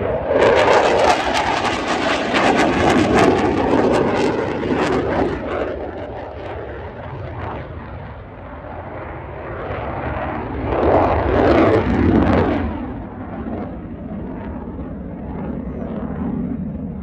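Saab JAS 39 Gripen fighter jet's engine roaring during a display pass, loud and crackling for the first five seconds. It then fades, swells again briefly about eleven to twelve seconds in, and dies away as the jet climbs off.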